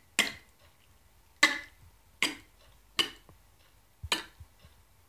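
Beatboxing hollow-throat K release: the tongue held against the roof of the mouth with the throat expanded, then let go, giving a sharp hollow click. It is repeated about five times, roughly a second apart.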